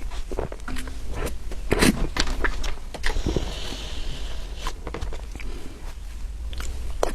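Close-miked mouth sounds of someone chewing soft, creamy cake: irregular wet clicks and smacks, with a brief soft hiss about three seconds in.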